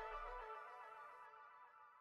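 Background music fading out, its last notes ringing and dying away.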